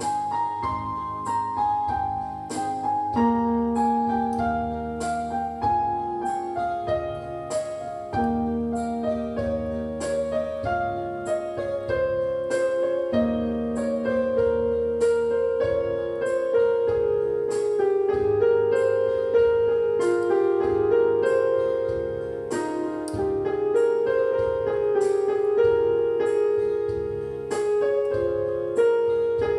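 Background piano music: a gentle melody of evenly paced notes.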